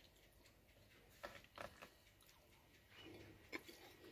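Near silence: faint chewing of a pancake with sour cream, with a few soft clicks of cutlery.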